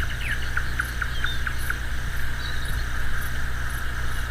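Night-time insect chorus of crickets chirping, with short repeated chirps about four a second in the first couple of seconds, fainter pulsing trills higher up, and a steady low hum beneath.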